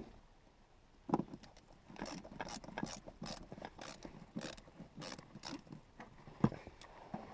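Audi B5 driver's seat being slid back along its rails: a run of mechanical clicks and knocks, about two to three a second through the middle, with a louder knock about a second in and another near the end.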